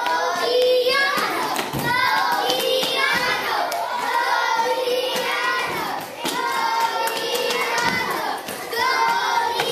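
Many young children's voices cheering and calling out together, with hand clapping mixed in.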